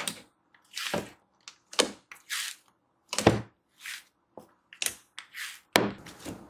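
Fluffy slime, made airy with shaving cream, being squeezed, pulled and poked by hand in a plastic bowl: irregular wet squelches and sticky crackling pops, two or three a second.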